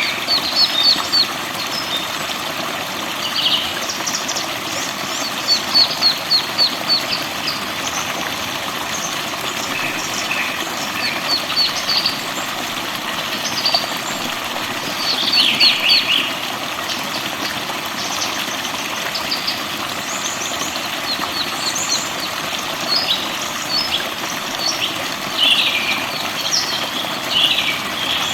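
Forest songbirds chirping and trilling, in quick runs of repeated high notes, over the steady rush of running water.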